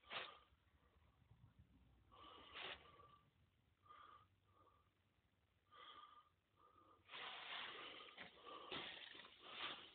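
Mostly near silence with a few faint short squeaks, then from about seven seconds in, louder shuffling and rustling footsteps on a cluttered wooden floor.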